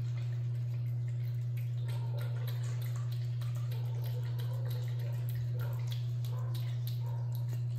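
Cat eating wet pâté from a plate: many quick, wet smacking and licking clicks, over a steady low hum.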